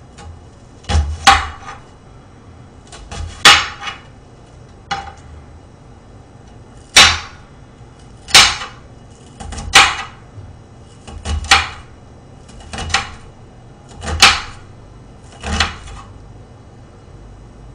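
Kitchen knife chopping an onion on a glass cutting board: sharp clacks of the blade striking the glass, one every second or so at an uneven pace.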